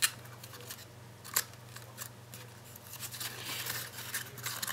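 Cardstock box flaps being folded and pressed closed by hand, with light paper scraping and rustling and two sharp taps, one at the start and one about a second and a half in.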